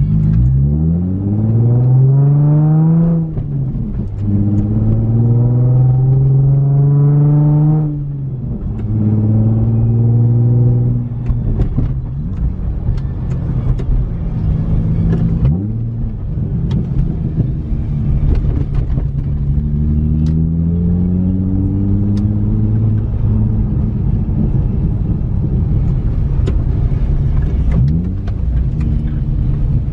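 Nissan 350Z's 3.5-litre V6 with an aftermarket Tomei exhaust and test pipes, accelerating hard through the gears. The revs climb and fall at an upshift about three seconds in, again near eight seconds, and once more around eleven seconds. Then the car cruises with a steadier drone and a gentler rise in revs later on.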